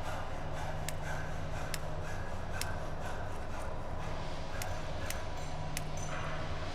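Factory ambience: a steady mechanical hum with sharp metallic clicks every second or so, at uneven intervals.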